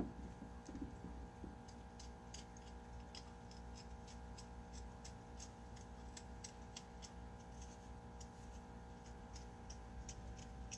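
Faint, irregular little clicks and scrapes of a small knife peeling the thin skin off small new potatoes, a few per second, over a steady low hum.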